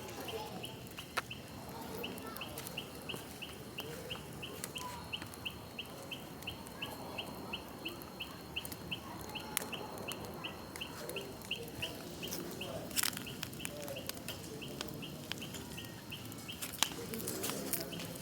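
Bonfire burning with scattered sharp crackles and pops, the loudest coming about 13 and 17 seconds in. Under it runs a steady series of short high chirps, about two to three a second.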